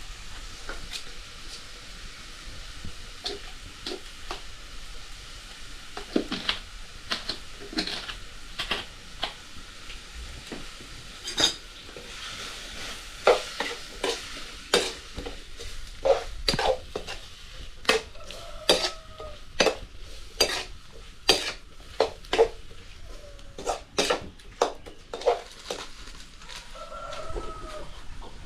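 Food being stirred in a sizzling pan: a steady sizzle under repeated clicks and knocks of a utensil against the pan. The knocks come thickest and loudest in the second half.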